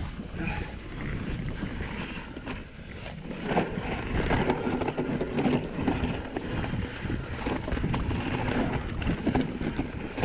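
Mountain bike ridden fast down a dry dirt trail: wind rushing over the handlebar-mounted camera's microphone, tyres on loose dirt, and the chain and frame rattling and knocking over bumps. It gets louder and busier about three and a half seconds in, as the speed picks up.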